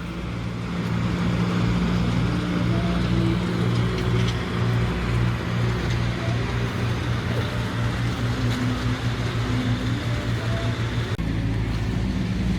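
A motor running steadily with a low hum over a wash of outdoor noise. The hum dips and shifts slightly about eleven seconds in.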